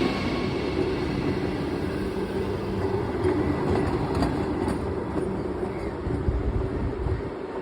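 Vande Bharat Express trainset running past on the rails: a steady low rumble with a few sharp wheel clicks, slowly fading as the train moves away.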